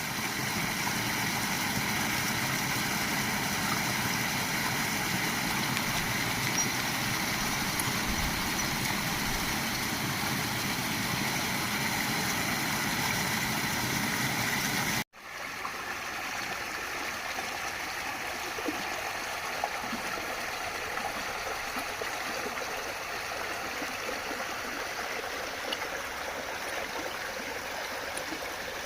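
Water falling in a small natural waterfall, a steady rushing splash. About halfway through it cuts off for an instant and comes back softer, with less low rumble.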